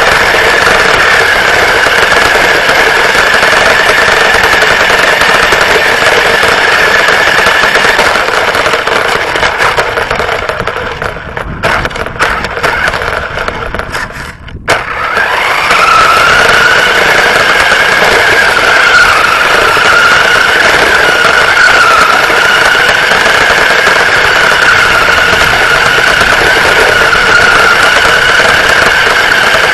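Radio-controlled car, heard close up from a camera mounted on it, giving off a loud, steady, high-pitched whine that wavers slightly. The whine fades and breaks up about ten seconds in, cuts out briefly near fourteen seconds, then sweeps back up and holds steady.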